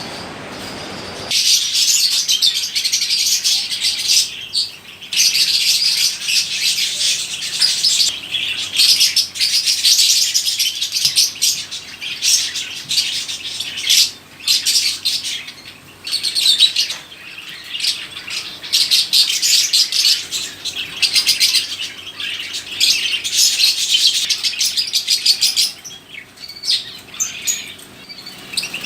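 Many small caged birds chirping and chattering at once, their calls overlapping in a dense, continuous chorus that starts about a second in.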